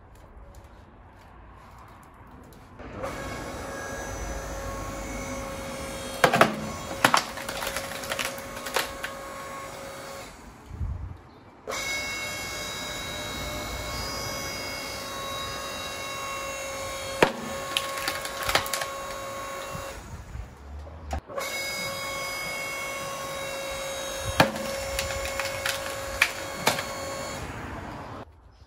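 Forrest Master FM10 7-ton electric log splitter running, its electric motor and hydraulic pump giving a steady hum that breaks off twice for about a second. Over the hum come loud sharp cracks as a big log round splits under the ram.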